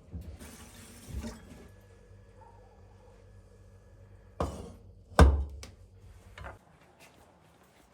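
A few separate hard knocks, the loudest a heavy thud a little past the middle, over a faint steady hum.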